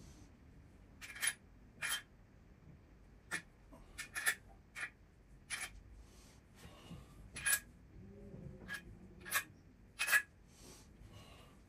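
Steel-and-aluminium cam bearing caps being set down onto the camshafts and studs of a BMW S38B36 cylinder head, clinking: about a dozen sharp metallic clicks at irregular intervals.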